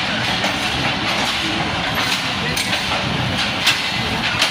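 Passenger train rolling past close by, with a steady rumble of wheels on rail and irregular clicks of the wheels over rail joints.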